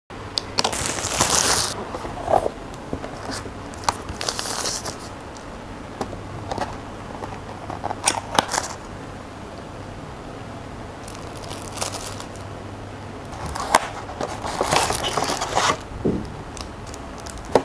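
Unpacking a drawing tablet's box by hand: cardboard inserts lifted out and plastic packaging crinkling and rustling in several short bursts, with occasional sharp clicks and taps.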